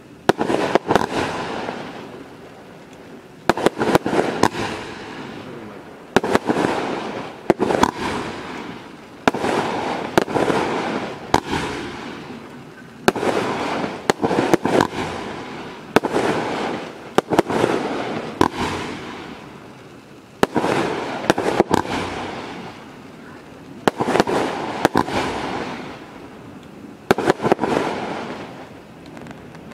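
Celtic Fireworks Chemical Romance multi-shot firework cake firing volley after volley. Clusters of sharp bangs come about every one and a half to two seconds, each followed by crackling that fades.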